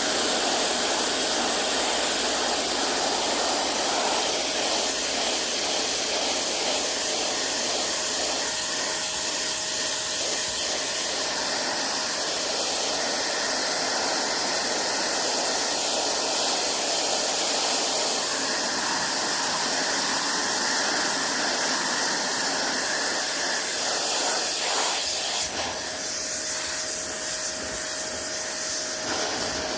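Pressure washer spraying: a steady hiss of the water jet with a faint steady tone underneath. The spray's sound shifts and drops slightly near the end.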